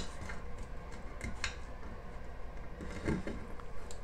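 Faint, scattered light clicks and scrapes of small screws being turned in by hand from behind a drawer front to fasten a metal cup pull.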